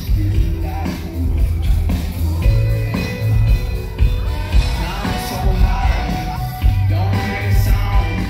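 Live rock band playing loud in a large hall: electric guitar, heavy bass and drums with sung vocals, heard from within the crowd.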